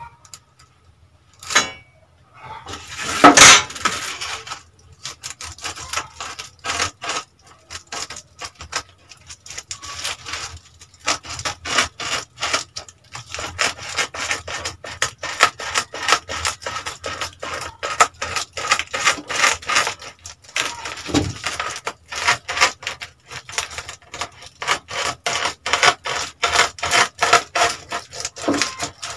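Scissors cutting through aluminium-foil bubble heat insulation in quick, repeated snips, the foil sheet crinkling as it is cut. A louder burst of crackling about three seconds in.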